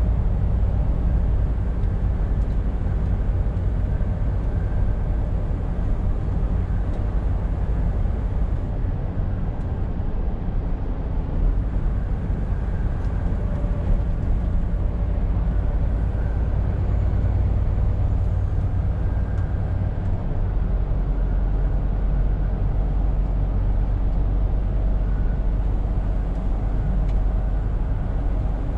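Scania R520 truck on the move: its diesel engine drones steadily under a constant rumble of tyre and road noise, with no sudden changes.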